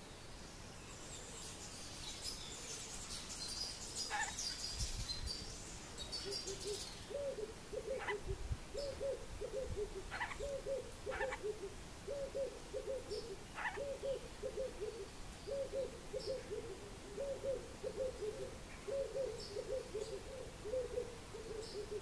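A bird giving a low cooing, hooting call in short groups of two to four notes, repeated over and over from about seven seconds in. Before that, small birds twitter high, and a few sharp single calls come between.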